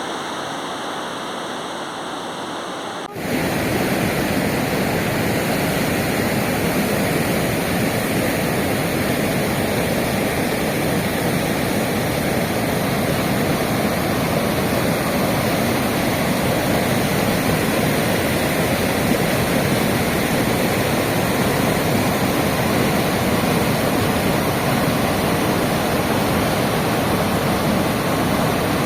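River water rushing, a steady even hiss. About three seconds in it jumps suddenly louder and fuller, then holds steady.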